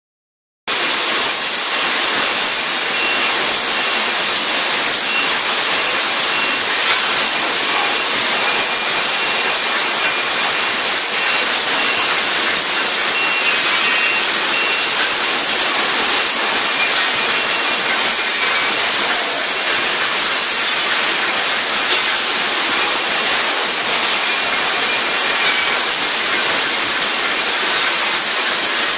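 Automatic packaging machinery running on a factory floor: a loud, steady hiss-like noise with faint ticks and a faint high whine, starting abruptly just under a second in.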